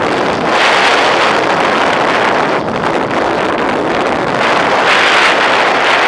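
Airflow rushing over the onboard camera microphone of an RC Duo Discus scale glider in flight. The noise is a steady loud rush that swells twice, with no motor heard.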